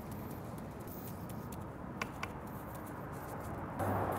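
Faint handling sounds of a gloved hand rubbing seasoning into raw chicken wings on a metal sheet pan, with two light clicks about two seconds in. A louder steady hiss with a low hum comes in near the end.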